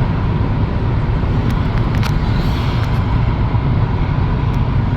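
Steady loud rumble of a running vehicle.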